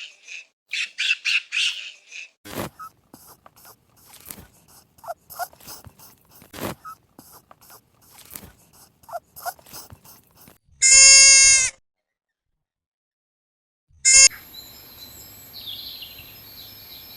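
Birds chirping in quick runs, then scattered chirps and clicks. About eleven seconds in comes a loud, steady-pitched animal call lasting about a second, followed by a short repeat of the same tone a few seconds later.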